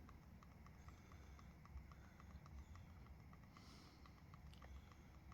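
Near silence: room tone with a faint, regular ticking about four times a second.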